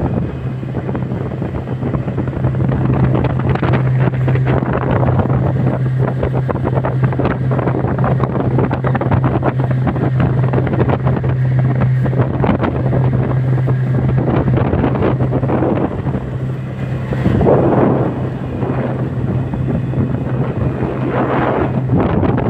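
Motorboat engine running steadily at low-to-medium throttle, a constant low hum, under heavy wind buffeting on the microphone with uneven gusts and knocks.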